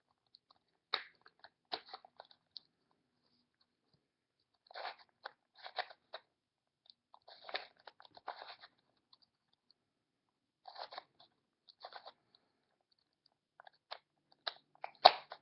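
Plastic Rubik's Cube layers being turned by hand: short runs of clicking and scraping, a few turns at a time, with pauses between.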